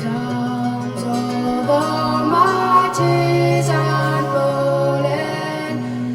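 Music: a song with acoustic guitar and held melody notes between sung lines.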